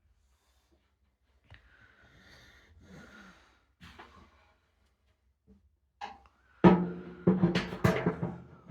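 Sheet-steel barrel of an oil-drum barbecue being knocked and clanked while its parts are put together, each knock ringing with a metallic tone. After a few faint handling rustles, a cluster of about five loud clangs comes in the last two seconds.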